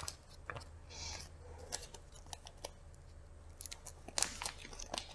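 Small plastic parts bags being handled and pulled open: faint crinkling with scattered light clicks and ticks, a brief rustle about a second in and a cluster of clicks near the end.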